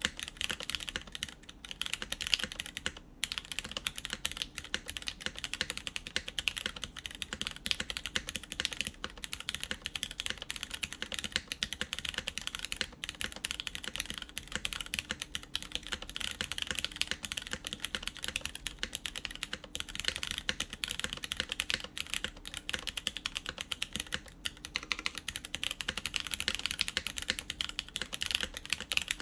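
Continuous fast typing on a BeatLab Solar80 mechanical keyboard with lubed Cherry MX Brown tactile switches, aluminium plate and GMK keycaps: a dense stream of key clacks with a couple of brief pauses.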